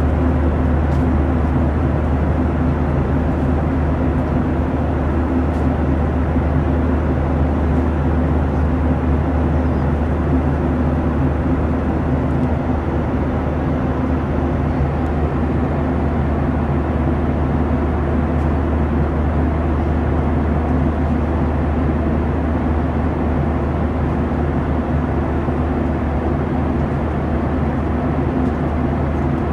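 Steady cabin drone of a Boeing 737-900ER in flight, made of engine and airflow noise. It has a deep rumble and a few steady low hum tones, and its level holds even throughout.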